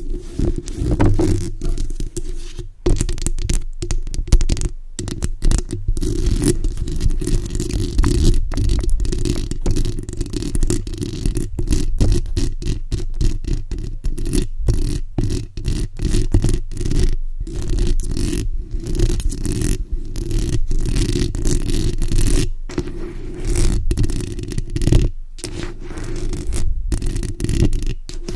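Long acrylic fingernails scratching rapidly over a condenser microphone's bare metal mesh grille, right on the capsule. It comes as a dense run of short scratchy strokes with brief breaks, and has a deep, boomy undertone.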